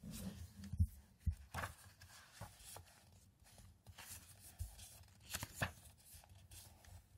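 Pages of a paperback book being leafed through and turned by hand: a series of short paper rustles and flaps, with a few soft knocks as the book is handled.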